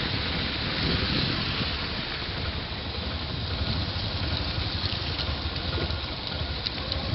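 Wind buffeting the microphone over steady engine and tyre noise from a vehicle moving slowly along a wet, muddy, potholed road, with a faint slosh of water from the wet surface.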